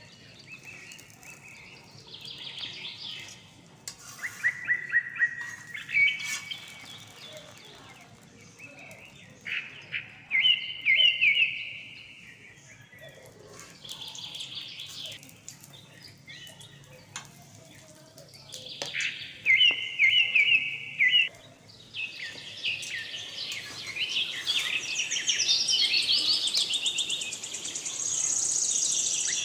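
Small birds chirping and singing in short repeated trilled phrases, busier and nearly continuous in the last third.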